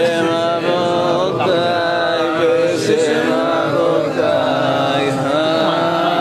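Men's voices chanting a Hebrew liturgical melody together, with long held notes that glide slowly up and down.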